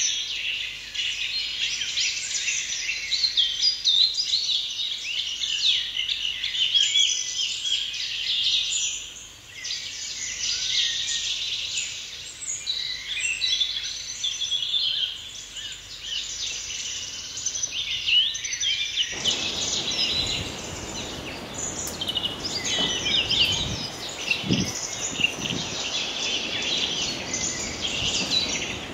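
A dense chorus of many short, high chirping calls, overlapping without a break. About two-thirds of the way in, a low rumbling noise comes in suddenly under the chirping, and a brief low sound follows a few seconds later.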